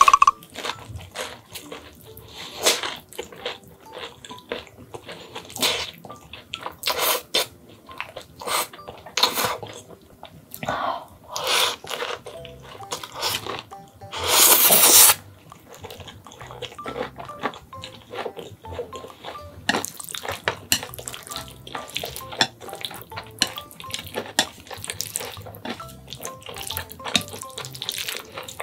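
Close-miked noodle slurping and wet chewing: a string of short slurps and mouth sounds, with one long, loud slurp about halfway through. The noodles are creamy, sauce-coated rosé buldak fire noodles.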